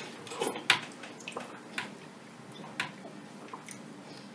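Spoons clicking lightly against bowls of beans as two people eat, a few scattered clicks over quiet room tone.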